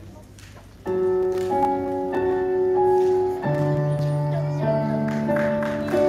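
A piano, violin and cello trio playing, coming in about a second in with held notes and chords that change every second or two, a low note joining about halfway through.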